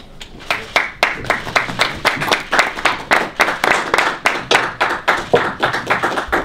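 A small audience applauding by hand, the separate claps of a few people distinct rather than blended, beginning about half a second in.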